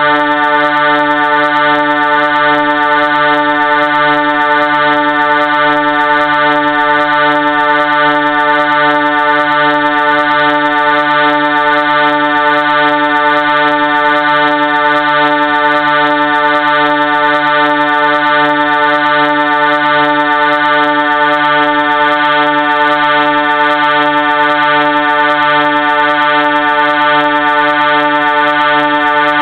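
Train horn sounding a loud, steady chord of several tones at once, held without a break.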